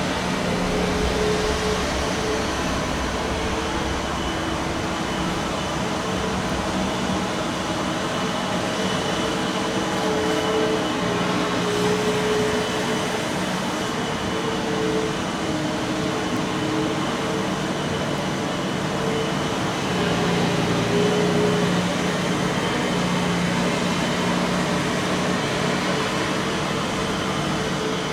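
Steady mechanical drone over a hiss, with a few humming tones that waver slightly in pitch, like a running air-conditioning unit.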